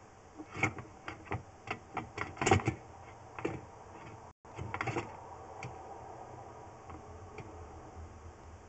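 Drain inspection camera rig being pushed along a storm water pipe: an irregular run of clicks and knocks for the first few seconds, then a steady low hum once it stops moving.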